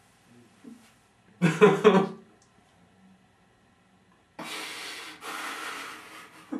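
A man's stifled laughter behind his hand: a short voiced burst of laughter about a second and a half in, then long breathy snorts through his covered mouth near the end.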